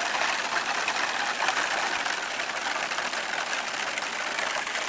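Small gas engine of a radio-controlled model airplane running steadily as the plane comes in low to land.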